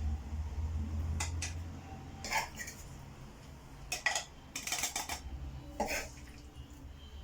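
A metal spoon clinking and scraping against a cooking pan about half a dozen times, scooping cooked onion-tomato masala out to be ground in a blender.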